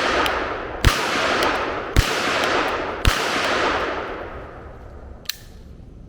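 Three shots from a 9mm Beretta PX4 pistol, about one a second, each followed by a long rolling echo that fades out. A small sharp click comes near the end.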